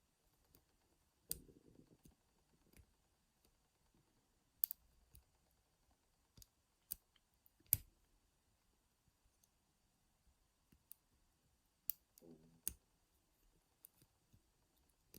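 Homemade wire pick and tension tool working inside a rusty laminated padlock: scattered sharp metallic clicks a second or more apart, with brief handling rustles, as the pins are picked.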